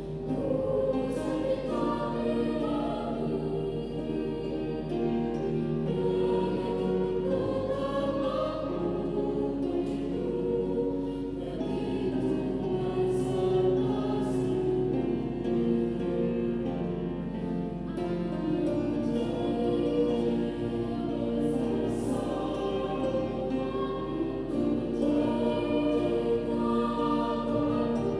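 Youth choir singing in several parts, with sustained notes that shift in pitch.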